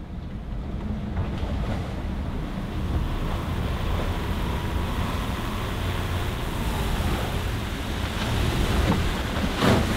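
Wind and waves rushing around a small sailboat beating to windward through a short, sharp chop. A faint whine from a spinning wind generator is heard through the middle and drops in pitch as it fades. A loud splash of water comes near the end.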